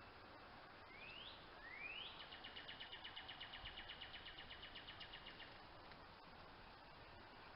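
A bird singing faintly: two quick rising whistled notes, then a fast, even trill of about nine notes a second lasting some three seconds.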